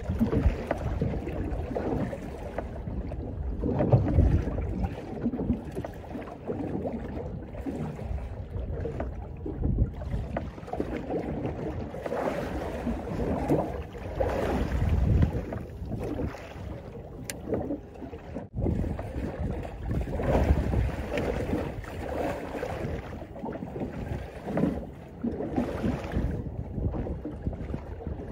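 Wind gusting on the microphone over water washing around a small boat: a low, uneven rumble that rises and falls in surges.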